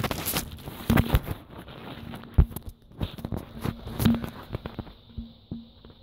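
Handling noise from a phone camera set low in grass: irregular knocks, bumps and rustling of grass against the microphone as it is moved and adjusted by hand, with a few louder knocks.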